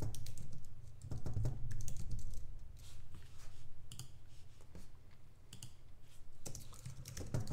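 Typing on a computer keyboard: irregular runs of key clicks with short pauses between them.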